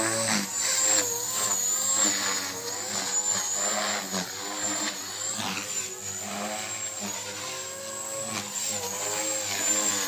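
Blade 450X electric RC helicopter flying 3D aerobatics: its brushless motor and main rotor buzz, their pitch rising and falling again and again as the throttle and blade pitch change, over a thin high whine.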